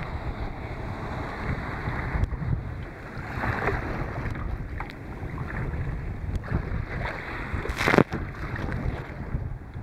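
Strong head wind buffeting the microphone over waves slapping and sloshing against a kayak in rough, choppy water. There is a softer splash about three and a half seconds in and a loud splash near the end as a paddle stroke throws spray over the deck.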